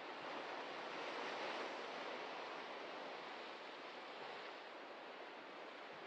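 Ocean surf breaking on a rocky shoreline: a continuous wash of waves that swells about a second in and then slowly eases off.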